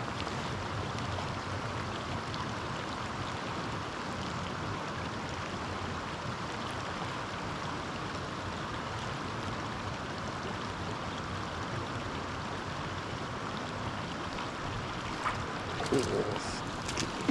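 Mountain stream flowing, a steady rush of water, with a few light knocks and clicks near the end.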